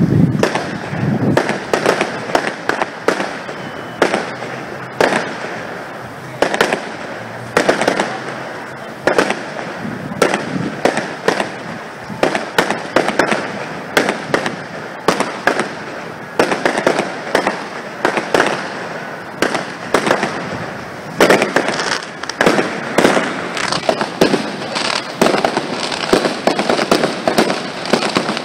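Aerial fireworks display: a rapid, continuous run of shell bursts, several bangs a second, with crackling between them.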